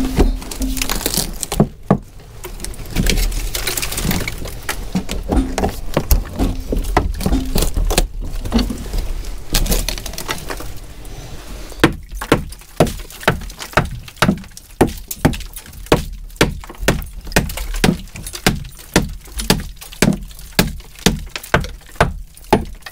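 Irregular metal clattering and scraping for the first half, then a hammer striking steadily, about two sharp blows a second, at old bolts set in a timber frame.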